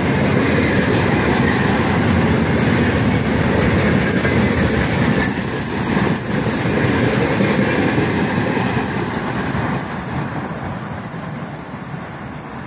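Freight train of railway tank cars rolling past on the next track, wheels clicking over the rail joints. The sound falls away about ten seconds in as the last cars pass and the train recedes.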